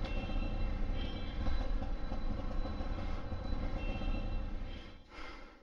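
Auto rickshaw's engine and road rumble heard from inside the passenger cab: a steady low drone that fades away near the end.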